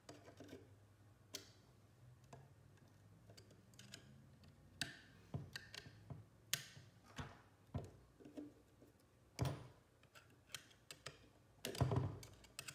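Irregular small clicks, scrapes and knocks of a flat-head screwdriver working against a small electric motor's metal end housing as a bracket is pried off, with louder knocks about nine and a half seconds in and near the end.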